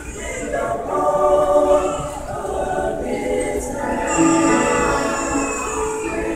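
A large mixed choir of women and men singing in held chords.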